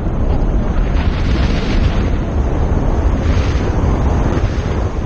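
Heavy rushing wind buffeting the microphone of a paraglider in a steep spiral dive, the airflow swelling and easing twice as the wing turns.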